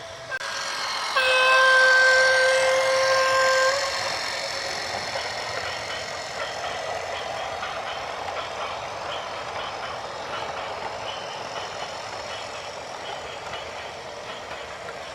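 A loud vehicle horn blasts once for about two and a half seconds, starting about a second in, followed by a steady rattling rumble of heavy traffic or machinery.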